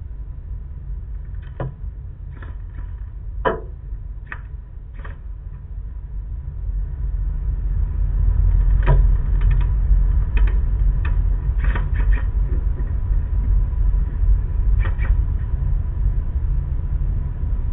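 About a dozen sharp, fairly quiet gunshot clicks at irregular intervals, typical of a low-powered air gun firing and pellets striking targets. Under them runs a steady low rumble that grows louder about eight seconds in.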